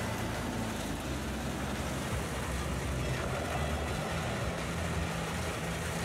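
Truck-mounted drum wood chipper running steadily, its engine and cutting drum a constant heavy drone.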